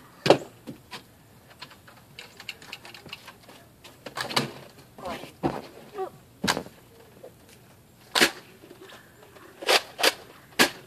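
Nerf foam-dart blasters being fired during a game: a scattered series of sharp pops and clacks at uneven intervals, the loudest about a third of a second in.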